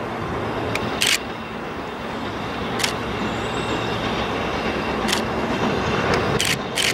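A steam locomotive hauling a train draws nearer, a steady rumble that grows a little louder. Short sharp bursts cut in every second or two and come in quick succession near the end.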